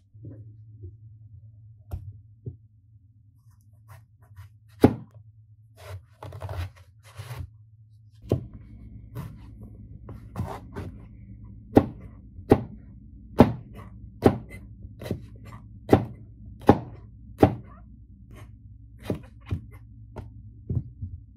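Chef's knife chopping eggplant on a plastic cutting board: a steady series of knocks about every 0.7 s through the second half, softer near the end. Before that, a few scattered knocks and a plastic bag rustling.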